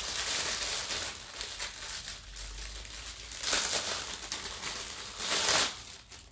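Clear plastic bag crinkling as it is handled and a silicone soap mold is pulled out of it, with two louder bursts of rustling about three and a half and five and a half seconds in.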